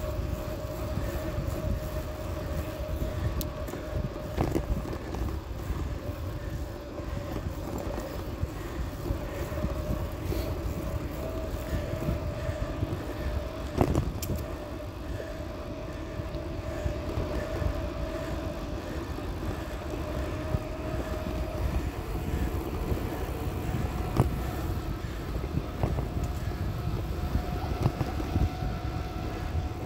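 Bicycle rolling along a paved trail, heard through a handlebar-mounted phone's microphone: a steady low rumble of wind and road vibration with a faint steady whine, and a few sharp knocks from bumps, about three in all.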